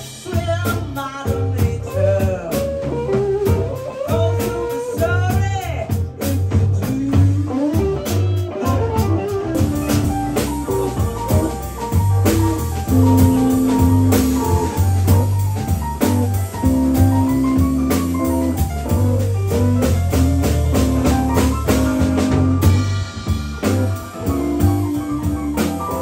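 A live band playing: drum kit, electric bass, electric guitar and a Nord Electro 4 keyboard, at a steady loud level.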